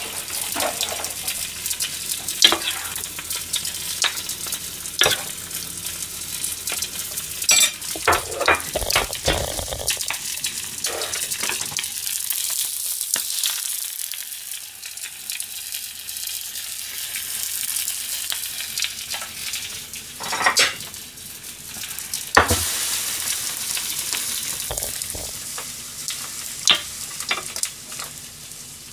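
Food sizzling in a frying pan, with a metal spatula and spoon scraping and knocking against the pan many times.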